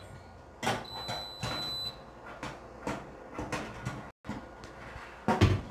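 Glass double doors of a Kalorik Maxx air fryer oven opening, and a metal wire rack of bread slices sliding into the oven, with scattered knocks and clicks of metal and glass and a louder knock near the end.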